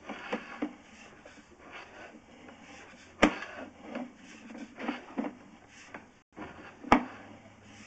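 Handling noise of a sewer inspection camera's push cable being pulled back by hand: irregular rubbing and soft knocks, with two sharp clicks about three seconds in and about seven seconds in.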